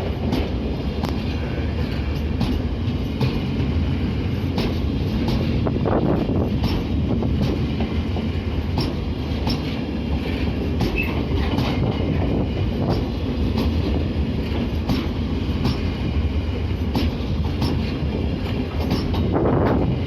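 Electric-hauled freight train rolling past at track level, a steady rumble of wagons with the wheels clicking over rail joints every second or so.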